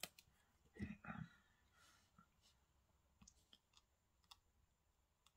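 Near silence with faint, scattered clicks and light handling noises: fingers and fingernails working a nail polish strip. There is a sharp click at the start and two soft thumps about a second in.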